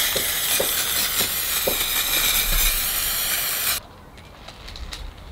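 Aerosol spray can spraying one steady hiss that cuts off suddenly about four seconds in.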